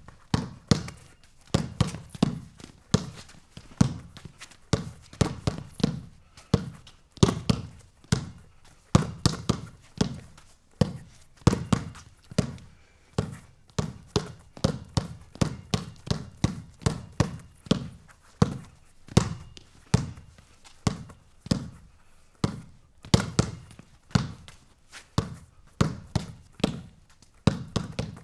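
A ball bouncing and striking a hard surface over and over: a long string of sharp thuds and taps at an uneven pace, two or three a second.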